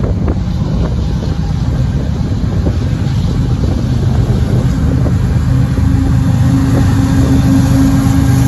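Two GE ES44AC diesel-electric locomotives, each with a V12 GEVO diesel engine, running as they approach at the head of a freight train, with a low engine drone that grows slowly louder. A steady low hum strengthens about five seconds in as the units draw close.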